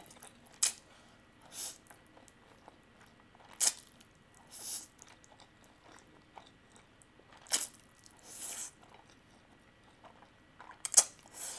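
Spicy instant fire noodles being slurped and chewed: a few short slurps a few seconds apart, with sharp wet mouth clicks between them.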